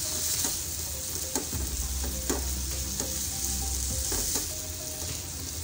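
Chicken cubes sizzling in oil and sauce in a non-stick frying pan while being stirred with a silicone spatula. A steady hiss, with short scrapes and taps of the spatula against the pan every second or so.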